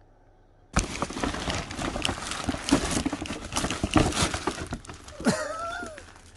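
Paper or packaging being torn and crinkled: a sudden start of dense, rapid rustling and crackling about a second in that runs for some four seconds. Near the end comes a short voice-like call that rises and falls in pitch.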